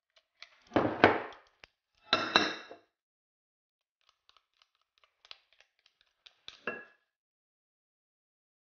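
Kitchen utensils knocking against a glass mixing bowl: two loud knocks about one and two seconds in, each with a short glassy ring, then light clicks and one more ringing knock near the end.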